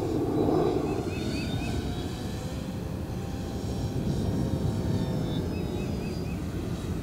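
Electric motor and propeller of an OMP Super Decathlon RC airplane flying overhead: a faint whine that glides slowly in pitch, over a steady rushing background.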